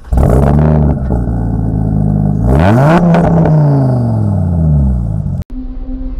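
Car engine sound effect: a steady low engine rumble, revved up sharply about two and a half seconds in, then winding down over the next two seconds. It cuts off abruptly near the end, leaving a faint low hum.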